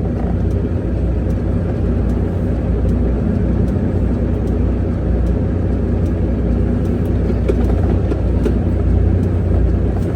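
Heavy diesel semi-truck engine running steadily, a continuous low rumble.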